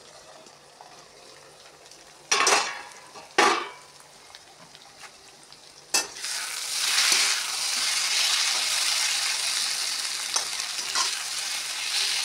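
Potatoes and masala frying in mustard oil in an iron kadhai. For the first two seconds the sizzle is muffled under a steel lid. Two loud scraping strokes follow a little over two and three seconds in, then a clink about six seconds in, after which the sizzle comes through loud and steady.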